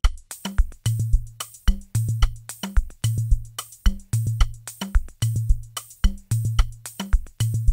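Programmed drum loop playing back from FL Studio's mixer with all channel EQs switched off, so the drums sound unequalised. It is a steady beat of sharp hits over deep, sustained bass notes.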